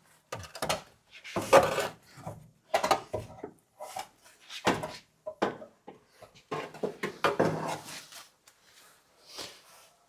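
Irregular workshop knocks, scrapes and rubbing as parts and tools are handled, in a run of separate short bursts with brief gaps.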